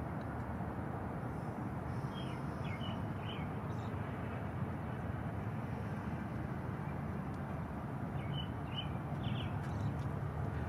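Osprey calling in two quick series of about four short, high chirps each, about two seconds in and again about eight seconds in, over a steady low background rush.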